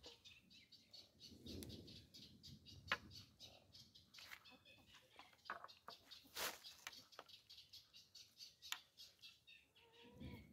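Faint, quick, repeated chirping of small birds, with a few soft clicks and rustles as a spoon scoops rice filling onto a grape leaf.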